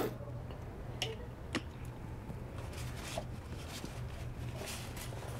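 Quiet room tone in a small tiled room: a steady low hum with a few soft clicks and knocks, the sharpest right at the start and two more about a second and a second and a half in.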